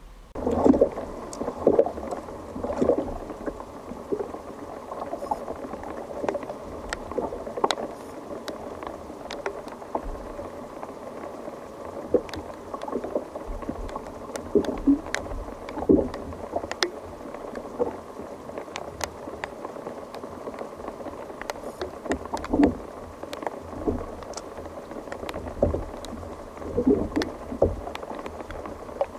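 Water lapping and gurgling against a fishing kayak's hull, with irregular sharp ticks and small knocks throughout.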